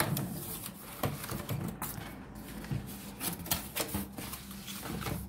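Scattered light clicks and knocks of a sandwich maker's plastic housing and loose nonstick cooking plates being handled, with one plate lifted off the others.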